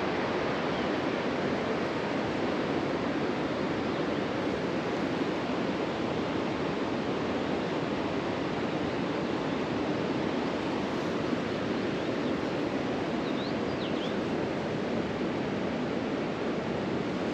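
Steady rushing outdoor noise with no engine running, and a few faint high chirps about three-quarters of the way through.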